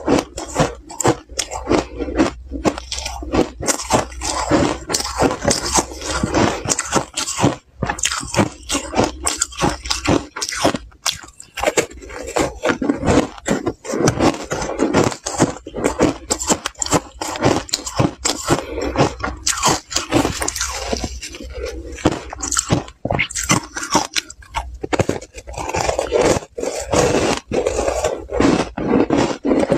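Close-miked crunching and chewing of slushy ice coated in matcha powder, several irregular crunches a second.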